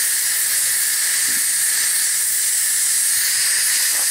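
Steam boiler's safety valve venting in a steady, high hiss, with the boiler holding at about 88 PSI and no engine drawing off steam. The operator suspects the valve is set to open at 90 PSI rather than 80.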